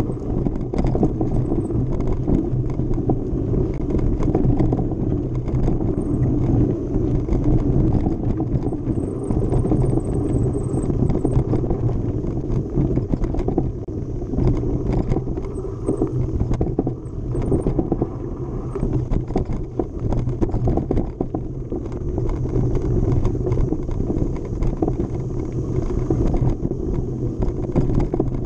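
Mountain bike rattling and clattering over rough trail at speed, with many small knocks throughout, under a constant rumble of wind on the microphone.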